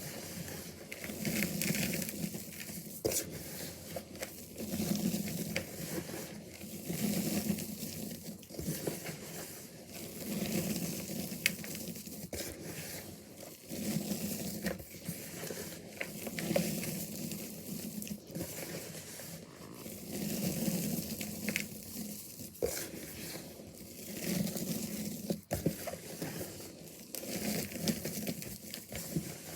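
Crunchy, dusty reformed chalk bars being crushed by hand, crunching and crumbling into powder in repeated squeezes about every two seconds.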